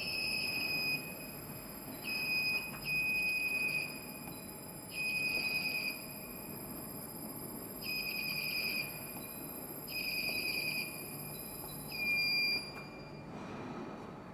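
Control-cabinet alarm buzzer of a PU coating machine sounding in seven shrill, buzzing beeps of about a second or less each, at uneven gaps, over a faint steady high whine. The last beep is the loudest, and the whine stops with it.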